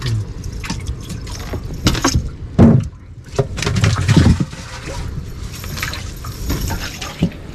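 Water splashing and dripping, with irregular wet slaps and knocks, as a cast net just hauled in with fish is handled. The loudest slap comes about two and a half seconds in, and a run of splashing follows around four seconds in.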